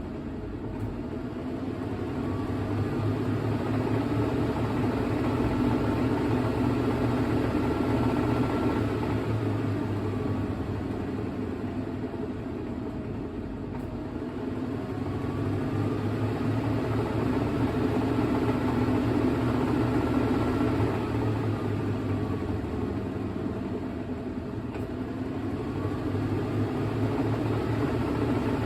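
Hitachi NW-5WR 5 kg washing machine on its spin-dry cycle: the drum motor whirs with a whine that rises and falls, and the noise swells and eases off in waves about every ten seconds.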